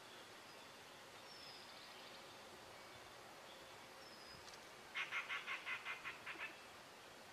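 A bird call about five seconds in: a quick run of about ten notes over a second and a half, speeding up and fading as it goes, over faint high bird whistles and a quiet outdoor background.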